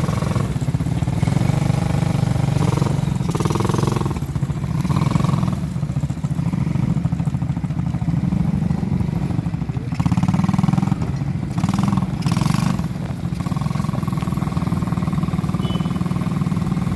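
ATV engine running, its note rising and falling at times as the throttle is worked.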